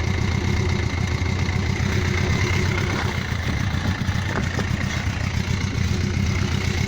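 Yamaha XJ900S Diversion's air-cooled inline-four engine idling steadily at about 1,000 rpm, its long-running misfire now cured.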